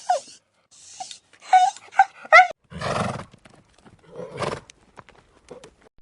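A string of short animal calls, about a dozen in quick succession with gaps between them, some with a sliding pitch and some rough and noisy.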